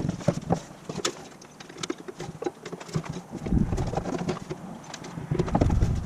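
Irregular clicks, taps and rattles of a truck's inner door panel being handled and pushed against the door while being refitted, with heavier dull thumps about three and a half seconds in and again near the end.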